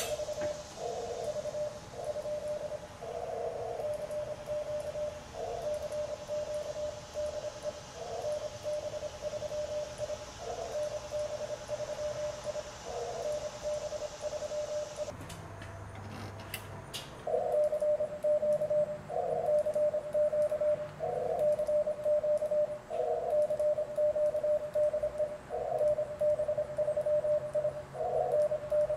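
Morse code sidetone from an Elecraft K3 transceiver: a single mid-pitched tone keyed on and off as CQ is sent on a Morse key. The keying stops for about two seconds halfway, with a few clicks in the gap, then resumes louder.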